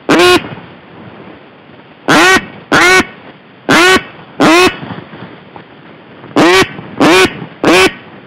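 Loud, close duck quacking in the hen-mallard style. Eight separate quacks, each about a quarter second long and rising then falling in pitch, come in groups of one, two, two and three.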